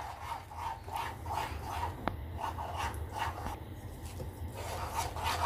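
A plastic spoon stirring rice batter and melted jaggery syrup in a bowl: a rhythm of swishing strokes, about three a second.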